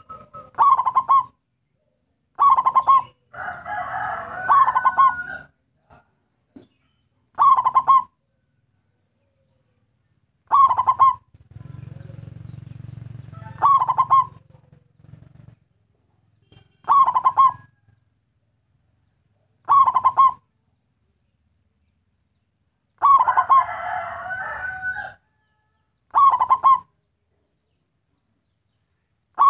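Local zebra dove (perkutut) singing in full voice: short, staccato cooing phrases repeated about every three seconds. Two of them, a few seconds in and again near the end, are longer and fuller. A low hum sounds for a few seconds in the middle.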